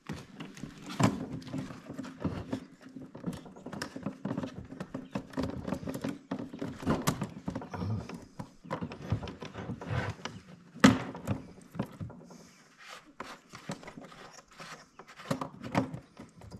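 Hands refitting the bar and chain on a DeWalt cordless chainsaw: the chain rattling, and plastic and metal parts clicking and knocking, with sharp knocks about a second in and near eleven seconds.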